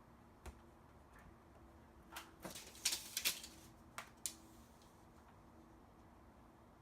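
A few short rasps of tape being pulled and torn, with a few light clicks from handling it.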